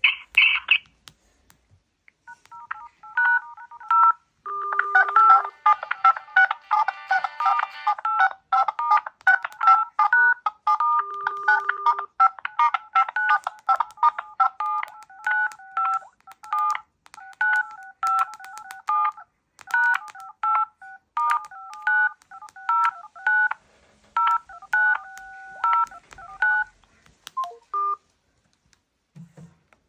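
Telephone keypad (DTMF) tones: a long run of short two-tone beeps that change pitch from beep to beep in a tune-like pattern, starting about two seconds in and stopping shortly before the end.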